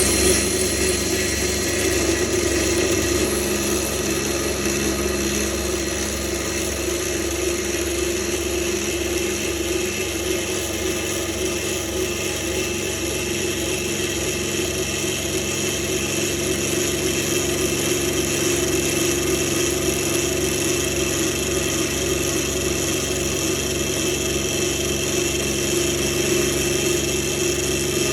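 Electric drill motor running steadily, a constant whine with little change in pitch or loudness.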